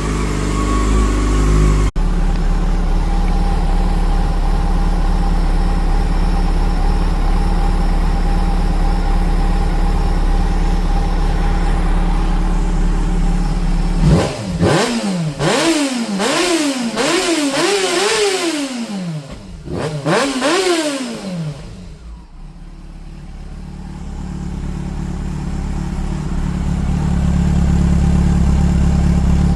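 Yamaha FZ6-N's 600 cc inline-four engine idling steadily, then revved in a quick series of about six throttle blips about halfway through, each rising and falling in pitch, before settling back to a steady idle.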